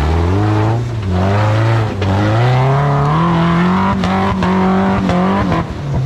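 Rock buggy engine revving hard under load as it climbs, its pitch rising over the first few seconds, holding high, then dropping near the end. A few sharp knocks are heard during the high-revving stretch.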